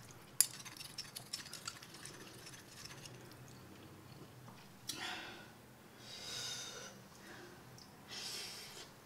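A metal fork and spoon clink and scrape against a ceramic plate as noodles are twirled, with one sharp click about half a second in and a run of small clicks after it. Three short breathy noises follow in the second half, as the eater slurps and breathes hard through a mouth burning from very spicy noodles.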